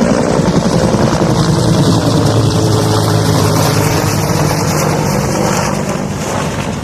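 Firefighting water-bombing helicopter, its rotor blades beating rapidly over the engine, loud and steady, easing slightly near the end.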